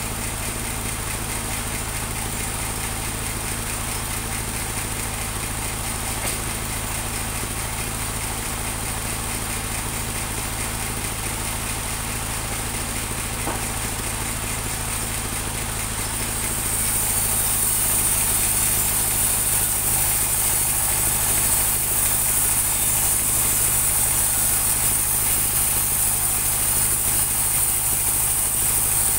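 Engine-driven band sawmill running steadily with a constant low engine drone; about halfway through, the blade bites into a teak plank and a high hiss joins in as the sound grows louder.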